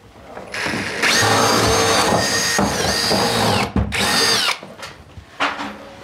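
Power drill boring a hole through a timber wall stud. The motor runs hard for about three seconds with a steady whine, its pitch sagging briefly under load. It stops, then runs again in a short burst of about half a second.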